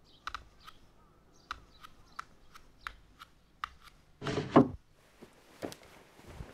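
Light taps of bare feet stepping on wooden floorboards, about two or three a second. About four seconds in comes a short, loud swish of cloth, followed by softer rustling of fabric.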